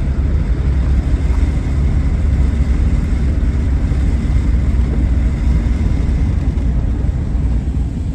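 Steady loud rumble of a car driving, road and engine noise heard from inside the vehicle.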